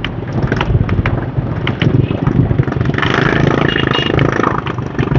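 Motorbike engine running steadily while riding in dense motorbike street traffic, with scattered clicks and rattles and a louder rush of noise from about three seconds in for a second or so.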